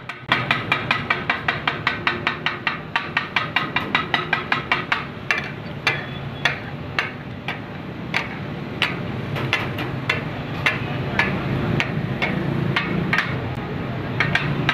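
Flat metal spatula blades chopping mutton mince on a hot iron tawa, knocking sharply against the griddle in the takatak rhythm: quick strikes about four a second for the first few seconds, slowing to about two a second, then quickening again near the end. Under the strikes, a steady sizzle of the mince cooking in water on the tawa.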